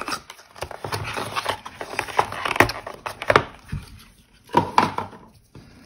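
Cardboard watch box and its packaging insert being handled: irregular rustling and scraping with a few sharp clicks and knocks, the loudest about halfway through and again near the end.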